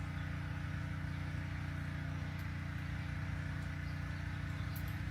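A steady, low mechanical hum with several fixed tones throughout, and a few faint light clicks partway through and near the end.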